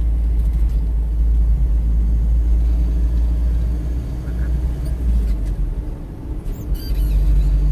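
Low road and engine rumble of a moving car, heard from inside the cabin. The drone is steady, eases off for about a second near the end, then picks up again.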